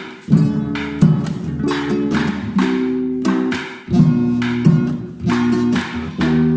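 Acoustic guitar strumming chords: instrumental music with no singing.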